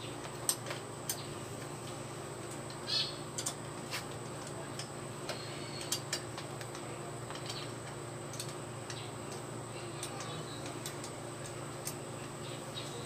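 Scattered light metallic clicks and ticks, irregularly spaced, as a 10 mm socket wrench loosens the bolts of a motorcycle's cylinder head cover. A steady low hum runs underneath.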